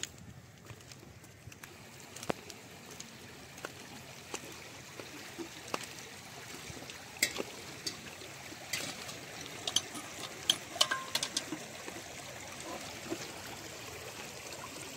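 Shallow seawater trickling through a channel among shore rocks at low tide, with scattered small clicks and knocks that come thicker in the second half.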